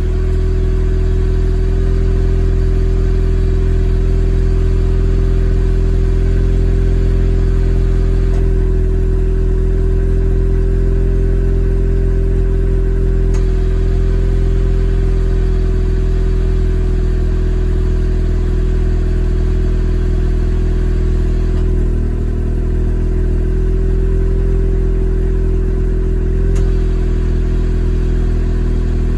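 Mazda RX-8's two-rotor rotary engine idling steadily through an R Magic aftermarket muffler, shortly after start-up.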